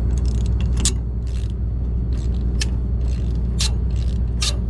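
Combine engine running with a steady low drone, while sharp metallic clicks and clinks come at intervals, about four times, as the sickle blades and guards are handled at the header's cutter bar.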